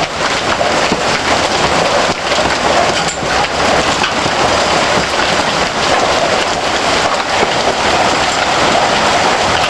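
Heavy rain and hail pelting down: a loud, steady hiss dense with small patters and ticks of stones striking surfaces.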